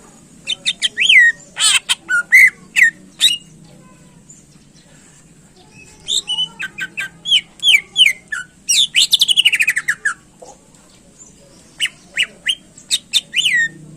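Cucak ijo (greater green leafbird) singing loud, sharp whistled phrases in three bursts, with a fast falling trill near the middle.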